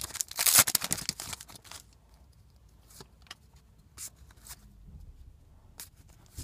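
Trading-card pack wrapper crinkling as it is torn open, for about the first two seconds. Then a few faint clicks and taps as the cards are handled.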